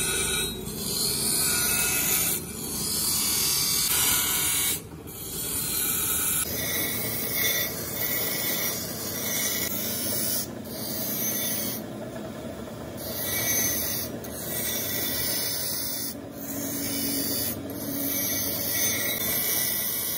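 Bench grinder's abrasive wheel grinding a small steel cobbler's tool forged from bearing steel: a continuous harsh grinding rasp. It breaks off briefly several times, with one longer break of about a second near the middle, as the piece comes off the wheel.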